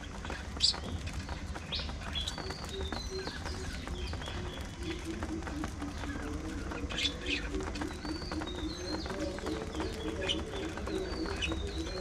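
A flock of budgerigars chirping and chattering in short, high calls, with a few sharp clicks. About halfway through, a low call starts pulsing several times a second and keeps on, over a steady low hum.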